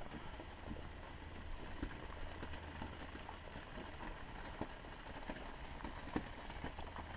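Maple syrup boiling hard in a lidded stockpot over an open flame, close to the finished-syrup point of about 104 °C. It is a faint steady low rumble with scattered small pops and clicks.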